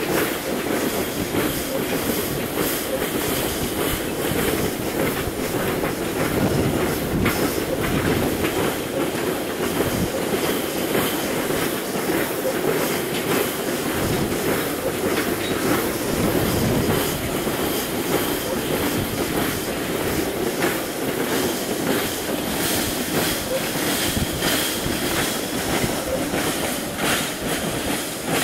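Narrow-gauge sugar cane train rolling past: a small diesel locomotive hauling a rake of empty cane bins, with a steady rumble and a regular clickety-clack of the wheels over the rail joints.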